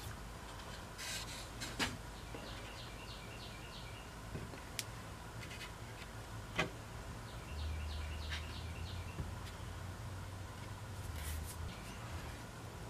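Light knocks and taps of a walnut board being handled and laid onto a glued hickory blank. A bird twice chirps a quick run of high notes, and a low hum swells for a few seconds in the second half.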